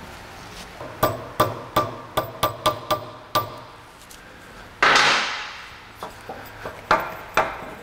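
Small hammer tapping on a steel band clamp of a CV axle boot: a quick series of sharp metallic taps, then one louder, longer scraping clatter about five seconds in and two more knocks near the end.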